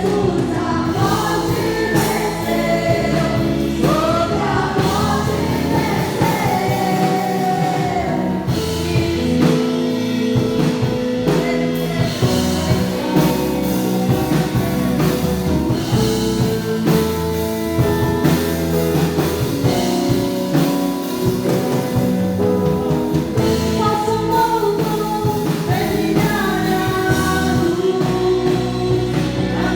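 Gospel worship music: a band with drum kit playing sustained chords under sung melody, the singing strongest near the start and again near the end.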